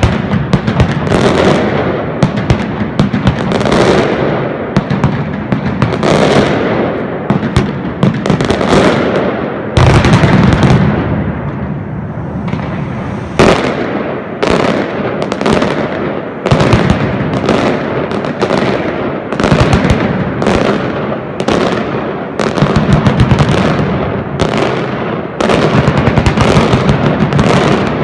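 Mascletà firecrackers exploding in a dense, unbroken barrage of bangs, with some bursting in the air overhead. The barrage swells into louder surges every few seconds.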